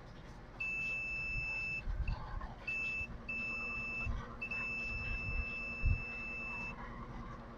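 Multimeter continuity beeper sounding as the test probes sit on a diode on a circuit board: a steady high beep that starts and stops four times as the probes make and lose contact, the longest near the end. The beep reads the diode as shorted.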